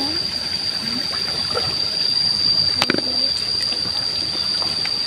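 Hands searching through shallow muddy water among floating plants, with a soft trickle and slosh of water and a sharp click about three seconds in. A steady high-pitched whine sounds in the background.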